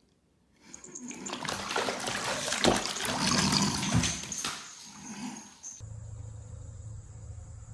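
A cat falling into a full bathtub and splashing and thrashing in the water for about five seconds. After that, a steady low hum.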